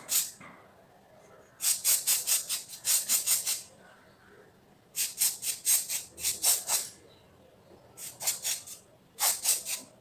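Hand-held spray bottle squirting a mist onto hair in quick runs of short hissing sprays, about four a second, four runs in all with brief pauses between.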